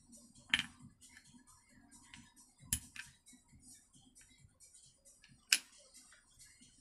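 Small clicks and light rattles from a petrol generator's plastic recoil starter and its pawl being handled and turned by hand, with three sharper clicks about two and a half seconds apart.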